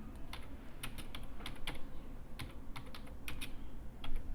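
Typing on a computer keyboard: irregular key clicks, several a second, as a file is renamed.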